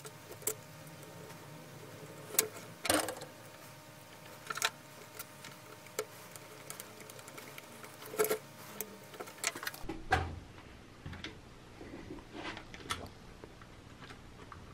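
Scattered, irregular clicks and taps of the parts and power cord of an aluminium-bodied electric drill being handled and fitted together during reassembly, with a heavier knock about ten seconds in. The drill's motor is not running.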